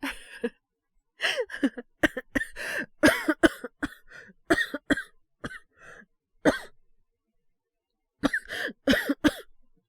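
A voice actor's acted coughing fit: many short coughs in quick runs, a pause of about a second and a half, then a last burst of coughs near the end. The character puts it down to breathing in the wrong way rather than a cold.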